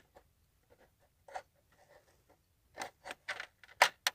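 Plastic VW Bora instrument cluster being handled: scattered light clicks and scrapes of plastic parts, sparse at first, then denser, ending in two sharp clicks.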